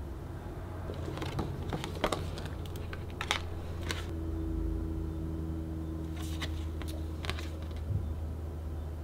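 Paper cards and a clear plastic zip pouch being handled: scattered light taps and clicks, about a dozen, irregularly spaced, over a faint steady low hum.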